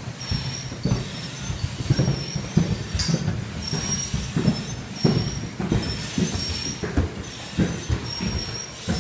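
Firefighters breathing hard through SCBA masks, each breath giving a short high tone from the air regulator, over heavy boot steps thudding up stairs.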